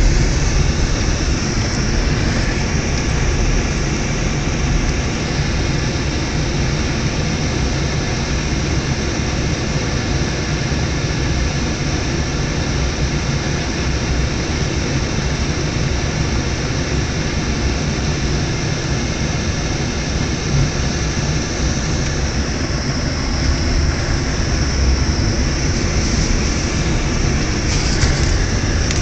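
Steady car engine and road noise heard from inside the cabin, a low rumble with an even hiss over it.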